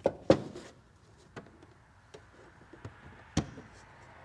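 A few sharp plastic clicks and knocks as a plastic trim piece in a car's front wheel well is worked loose and pulled out by hand, the loudest just after the start and about three and a half seconds in.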